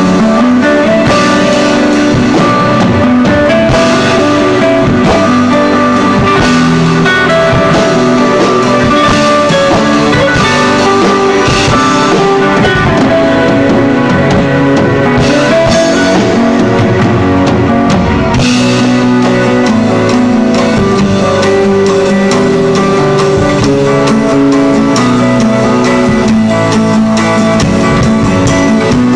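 Acoustic drum kit played with sticks along to a recorded smooth-jazz track with a plucked guitar melody; the drums keep a steady groove under the guitar.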